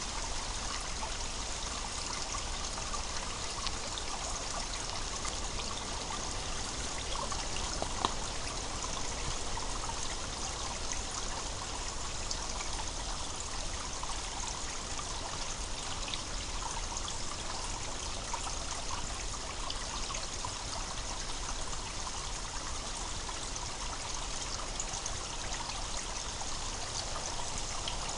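Spring water gurgling and trickling steadily, with a single brief click about eight seconds in.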